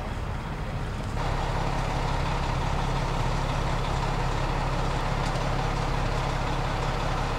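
Fire engine idling steadily close by, a constant low engine hum with a rushing haze above it; it steps up louder about a second in and then holds even.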